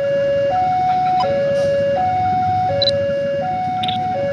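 Railway level-crossing warning alarm sounding as a train approaches. It is an electronic hi-lo tone alternating steadily, each tone held under a second, over a low rumble.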